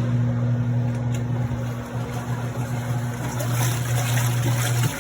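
Twin-tub portable washing machine's electric motor running with a steady low hum that starts and stops abruptly, with water rushing or splashing growing louder from about three seconds in.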